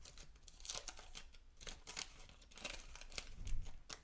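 Irregular papery rustling and crinkling from handling baseball cards and wax-pack paper: a quick series of short scratchy strokes as the cards are shuffled through.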